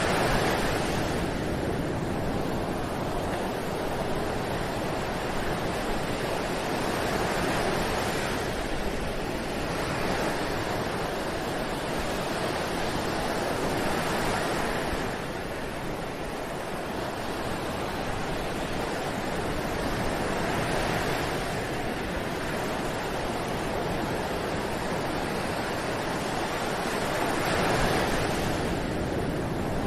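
Ocean waves washing onto a beach: steady surf that swells and eases every six seconds or so.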